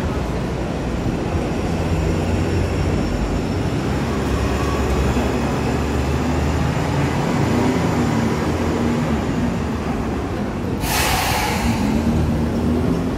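Elevated subway train running on the steel el structure overhead: a steady low rumble with a faint high metallic squeal. A brief loud hiss comes about eleven seconds in.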